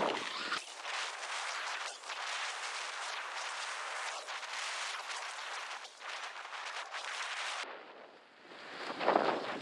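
Skis sliding and scraping over hard-packed groomed snow: a steady hiss broken by short edge scrapes, dropping away briefly about eight seconds in.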